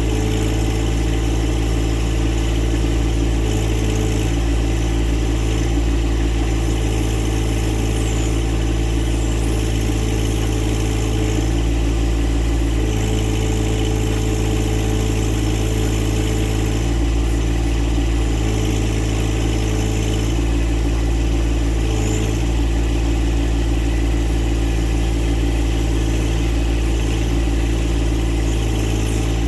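John Deere 1025R tractor's three-cylinder diesel engine running steadily while it powers the 260B backhoe digging a trench, with the tone shifting slightly every few seconds as the hydraulics take up load.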